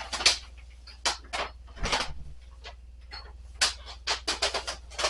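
Irregular handling noise: a string of short rustles and knocks, uneven in spacing, as a trash bag and the things around it are moved.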